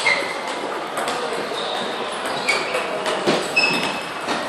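Table tennis hall between points: scattered sharp clicks of celluloid/plastic balls from play at nearby tables, a few short high squeaks of shoes on the rubber sports floor, and low background chatter in a large echoing hall.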